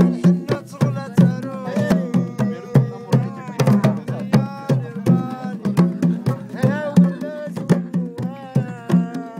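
Several clay goblet drums played by hand in a fast, driving rhythm, with deep ringing strokes and sharp slaps, while voices sing along over the drumming.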